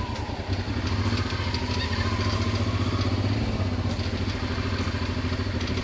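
Adventure motorcycle engine running at low revs as the bike is ridden slowly along a track, with a steady, even low pulse.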